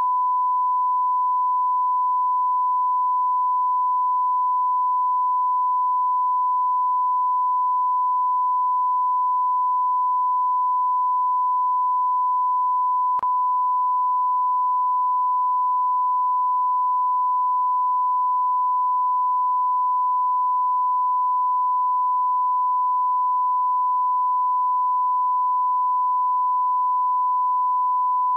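Continuous 1 kHz sine-wave line-up tone, the reference tone that goes with television colour bars, steady in pitch and level. A faint click about halfway through.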